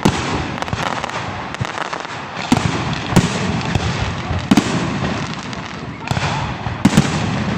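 Fireworks going off: several sharp bangs at irregular intervals of one to two seconds over a continuous noisy background.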